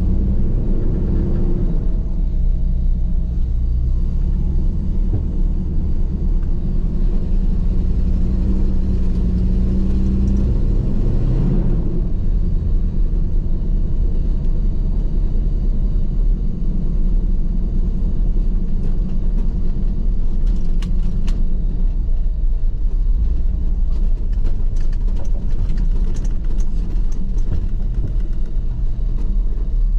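A vehicle driving slowly, its engine running under a steady low rumble, the engine note rising and falling during the first dozen seconds. Scattered light clicks and knocks come in the second half.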